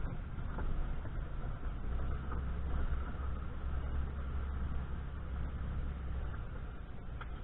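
A car driving slowly along a dirt road, heard from inside the cabin: a steady low engine drone with road noise.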